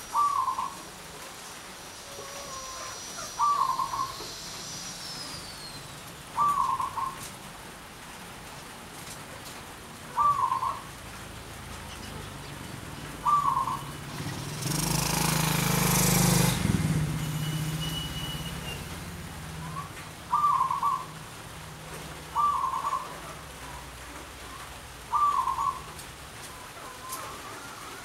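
Zebra dove (perkutut) singing, its short rapid cooing phrase repeated eight times about every three seconds, over the steady hiss of heavy rain. Partway through, a louder rushing noise swells and fades over a few seconds while the dove pauses.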